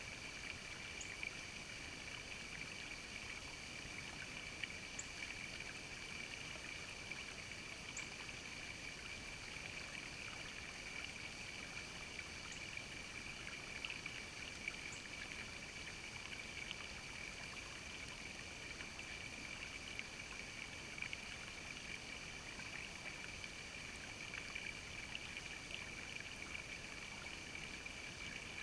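Shallow creek water trickling over rocks, a steady hiss with a few faint clicks now and then.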